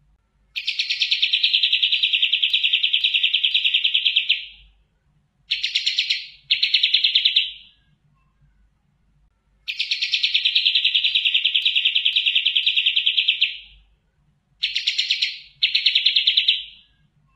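Kapas tembak (olive-winged bulbul) singing its rapid, even trill. There are two long trills of about four seconds, each followed by two short bursts, and the pattern repeats.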